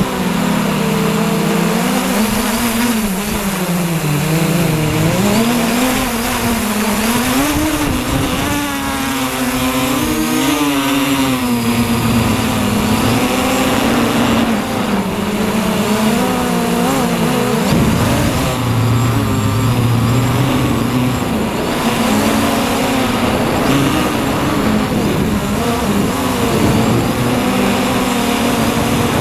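MJX Bugs 3 quadcopter's brushless motors and propellers buzzing up close, heard from the camera mounted on the drone. The pitch keeps rising and falling as the throttle changes, over a steady hiss of air.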